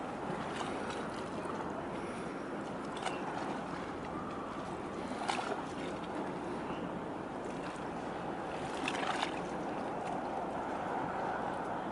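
Steady outdoor harbour noise, an even wash of wind and water, with a few short sharp sounds over it every few seconds.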